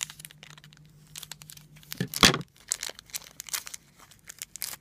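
Small plastic blind-bag wrapper crinkling and tearing as it is opened by hand, with one loud sharp rip about two seconds in.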